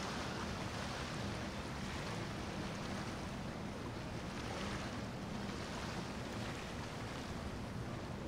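Azimut motor yacht cruising past: a steady low engine hum under the wash of its bow wave and hull wake on the water.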